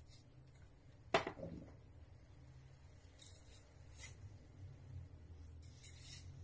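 Faint scratching and rustling of hands peeling and handling vegetables on a kitchen counter, with one sharp knock about a second in, over a low room hum.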